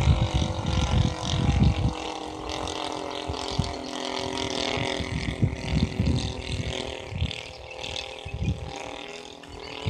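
Radio-controlled P-47 Thunderbolt scale model's motor running steadily as the plane flies overhead, its pitch drifting slightly. Wind buffets the microphone in gusts, heaviest in the first two seconds.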